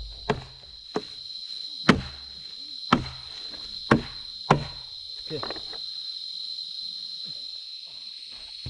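A steady high insect chorus, with six sharp knocks about a second apart in the first half, followed by softer scuffing sounds.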